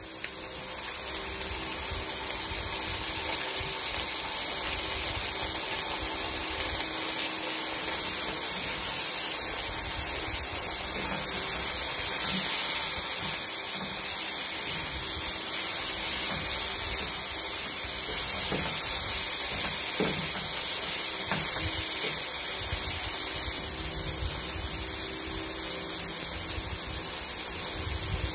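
Diced food sizzling in oil in a frying pan as it is stir-fried: a steady hiss throughout.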